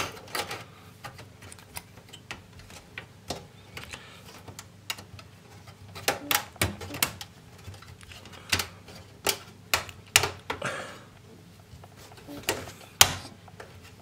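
Irregular metal clicks and taps as a sheet-metal expansion-slot retention bracket is worked into place on a steel desktop PC case, with a louder click near the end.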